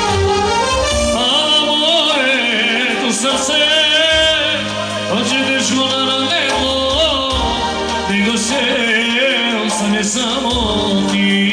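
Live party band music: a wavering, heavily ornamented lead melody over bass notes, played on a synthesizer keyboard.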